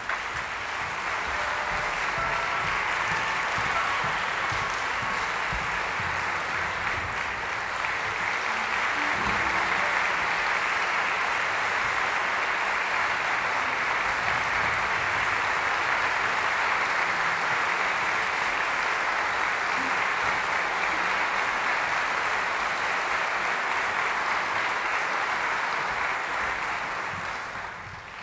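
Concert audience applauding, dense and steady, dipping briefly near the end.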